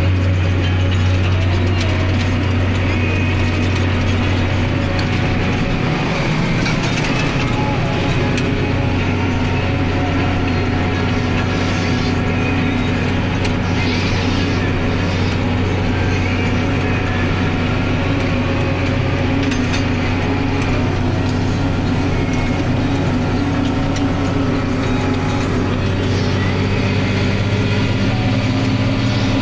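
Tractor's diesel engine running steadily under load while pulling a seedbed cultivator, heard from inside the cab over a constant mechanical rattle. The engine note shifts slightly about six seconds in.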